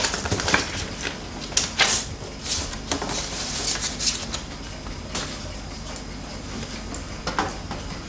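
Handling noises: irregular rustles, clicks and light knocks as hands lift and handle a paper sleeve at a shelf, with a last click about seven seconds in.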